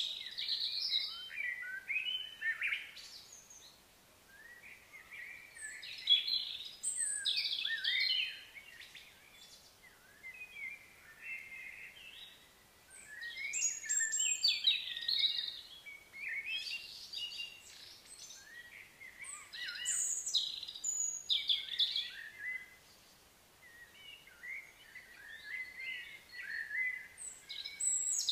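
Small birds singing and chirping in bouts of quick, varied high phrases, with short lulls between bouts.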